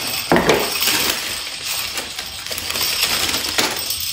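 A Christmas door-hanging decoration jingling and clinking as it is handled and shaken, with a sharper knock about a third of a second in and another near the end.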